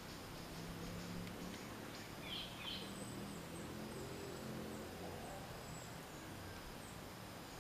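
Forest ambience: a steady background hiss with a few faint small-bird chirps about two to three seconds in and scattered faint high chirps. There is also a low, faint hum.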